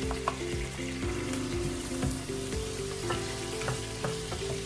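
Chicken frying and sizzling in a pan, with a few light clicks of a utensil stirring. Soft background music plays a slow melody underneath.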